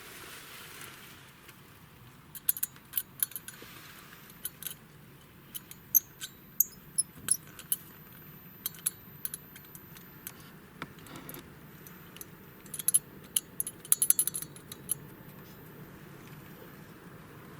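Metallic rattle from a Nissan Almera: irregular sharp clicks and clatters that come in clusters, over a low steady hum.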